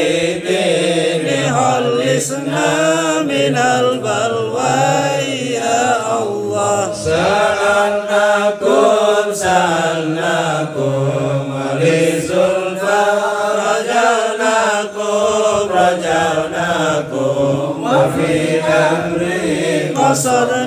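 A group of men's voices chanting an Islamic sholawat together, one voice leading on a microphone, in long continuous melodic lines that rise and fall.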